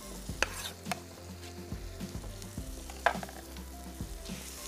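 Raw chicken chunks sizzling as they start frying in butter, oil and ginger-garlic paste in a pan, with two sharp knocks, about half a second in and about three seconds in.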